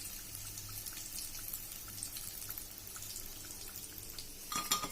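Crumb-coated chicken strips sizzling in hot oil, a light crackle with scattered small pops. Near the end a fried piece drops onto a plate with a sharp clatter and a brief ring.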